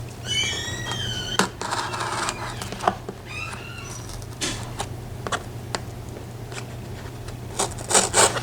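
A mailed package being torn open by hand. Packing tape pulls off with high, wavering squeals, twice, among rustling, crinkling and clicks of the packaging, with a louder rustle near the end.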